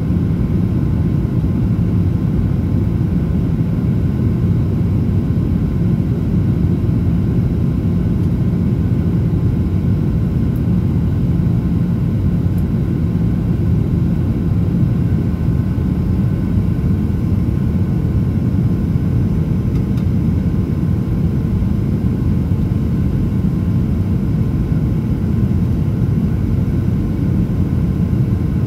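Steady cabin noise inside a Boeing 737-900ER: the even, low rumble of its CFM56-7B jet engines and airflow as heard from a passenger seat. A faint steady hum joins a little past halfway.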